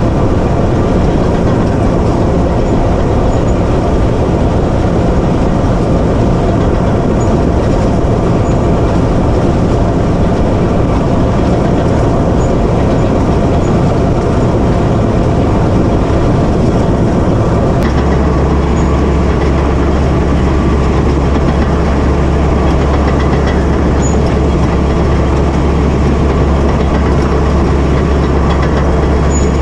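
Cat D8K crawler dozer's six-cylinder diesel engine running under load while pushing snow, with the steel tracks clanking steadily. About 18 s in the sound shifts to a deeper steady hum.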